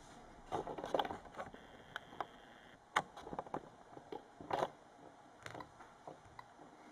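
Faint, scattered taps and clicks of a finger tapping through a smartphone's touchscreen, the sharpest click about three seconds in.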